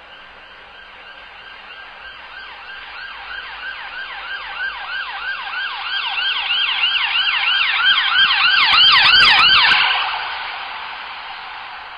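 Ambulance siren on a fast yelp, its pitch rising and falling about three times a second and growing louder as the vehicle approaches, then cutting off suddenly about ten seconds in. The rumble of a vehicle runs under it just before it stops.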